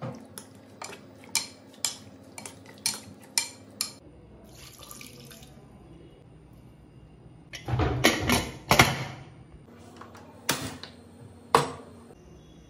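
A metal spoon clinks and scrapes against a pressure cooker pot as beef is mixed with spices, in quick sharp clicks. About halfway through comes a louder burst of metal clattering, then two single knocks near the end as the pot is handled onto the gas stove.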